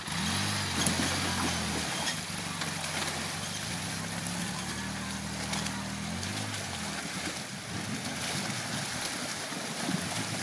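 Polaris Ranger side-by-side's engine running steadily as it wades through deep creek water, over the constant rush and churn of water around the vehicle. The engine note rises briefly about six seconds in, then sinks under the water noise.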